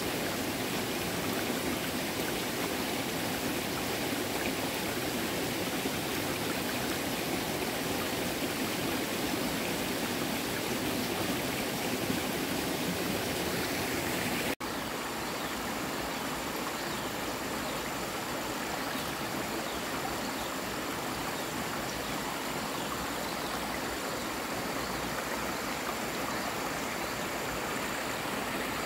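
Steady rushing of flowing stream water. About halfway through the sound drops out for an instant and resumes slightly changed, now with a faint, thin, high-pitched tone.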